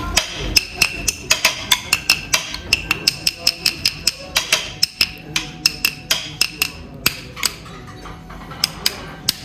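Rhythmic percussion: sharp, ringing wood-block-like strikes, about four a second, thinning out after about seven seconds.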